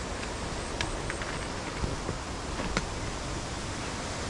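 Steady hiss of heavy rain falling, with a few sharp ticks of single drops striking close by, one about a second in and one near three seconds.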